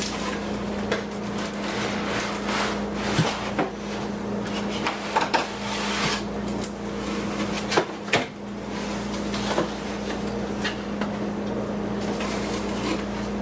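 Parts and packaging of a cordless stick vacuum being handled while unboxing: irregular knocks, clicks and rustling, over a steady low hum.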